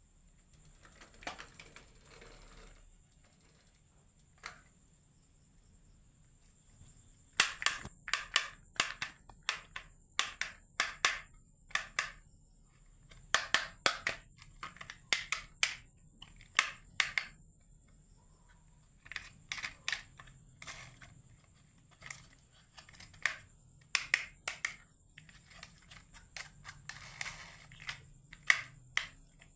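Marbles clacking and rattling down a wooden HABA marble run: clusters of sharp clicks, several a second, starting about seven seconds in and coming in runs with short pauses.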